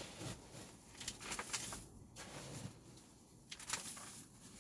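Faint rustling and scraping of hands mixing chicken manure into compost in a container, with a few light clicks.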